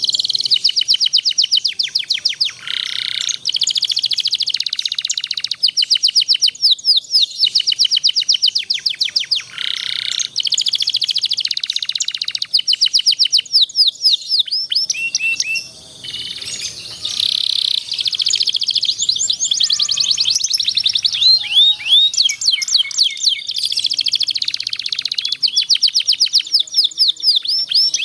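Domestic canary singing long rolls: fast trills of rapidly repeated high notes, one phrase after another with only brief breaks.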